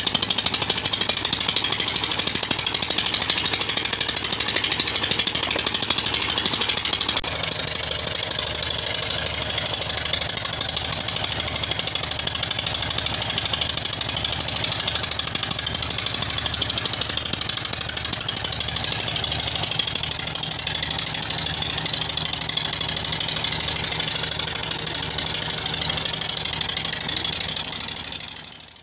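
Petter-type single-cylinder diesel engine running at steady speed, belt-driving an atta chakki flour mill: a fast, even thudding from the engine under a steady high hiss from the mill. The level drops slightly about seven seconds in.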